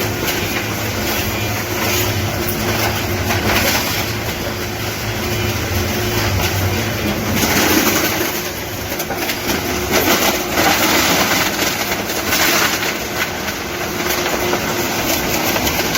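Integrated styrofoam volume-reduction machine running, with its crusher and transfer blower making continuous dense machinery noise. Irregular clattering runs over a steady low hum.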